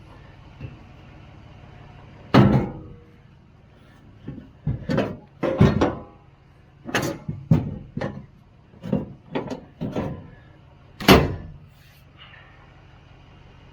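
A run of about a dozen knocks and bangs, irregularly spaced, the loudest two about two seconds in and near the end.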